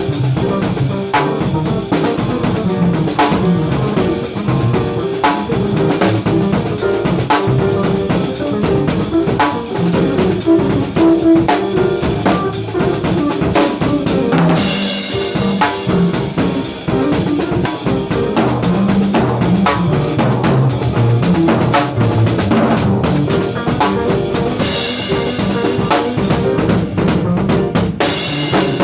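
Live funky, syncopated jam on drum kit and bass, with busy drum hits throughout and cymbal crashes about halfway through and again near the end.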